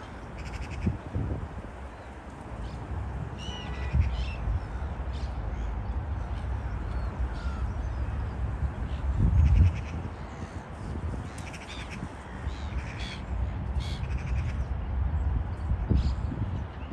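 A flock of gulls calling, with short calls scattered through and several coming in quick runs, over a steady low rumble with a few louder swells.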